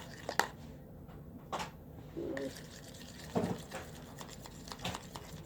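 Thick hand soap, chilled in the freezer, being stirred in a bowl: soft wet, sticky sounds with scattered light clicks.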